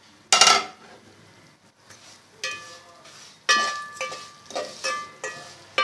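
A metal spoon knocking and scraping against a metal cooking pot as crushed vermicelli is stirred into hot ghee to fry. The pot rings with each stroke, several strokes about a second apart, after a short burst of noise just after the start.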